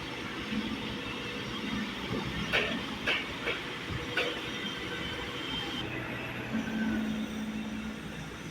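Construction-site machinery running steadily during a concrete pour, with a low hum that comes and goes. Four sharp metallic clanks fall between about two and a half and four seconds in.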